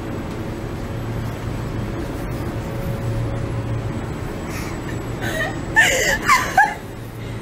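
Steady low hum of commercial kitchen equipment. Near the end come a few short, high-pitched vocal squeals, like laughter or whimpering.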